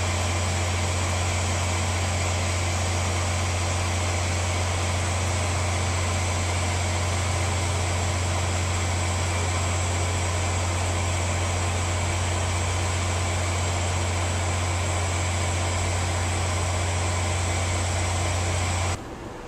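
VIA Rail EMD F40PH diesel locomotive standing with its engine running steadily: a loud deep hum with a high whine on top. The sound cuts off suddenly near the end.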